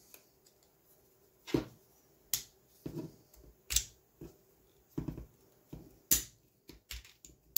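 Small sharp clicks and taps, about eight spread irregularly, from the hand-held 3D-printed plastic extruder body and its small M3 screws being handled as the screws are put in.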